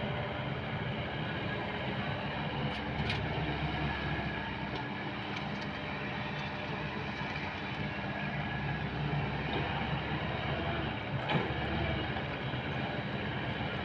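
Diesel engine of heavy earth-moving machinery running steadily, with a couple of sharp metallic clanks, one about three seconds in and a louder one about eleven seconds in.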